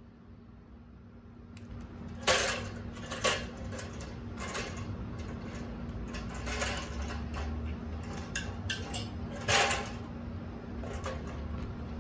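Metallic clanks and rattles of an aluminium ladder, used as the guide rail for an Alaskan chainsaw mill, being loosened and lifted off the log after the first cut. The sharpest clanks come about two seconds in and near ten seconds, with lighter knocks between, over a steady low hum.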